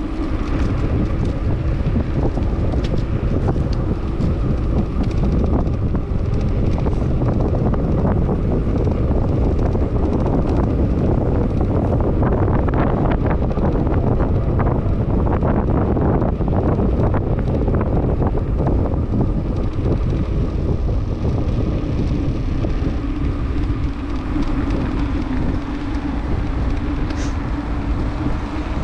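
Wind rushing over the microphone of a camera on a moving bicycle, with the bike's tyres rolling over a concrete path; a loud, steady rumble with scattered small ticks.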